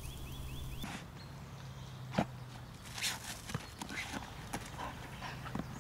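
A dog digging in loose soil: irregular scrapes and knocks of its paws in the dirt, a few a second, the sharpest about two seconds in. Before that, in the first second, a bird gives a quick run of chirps.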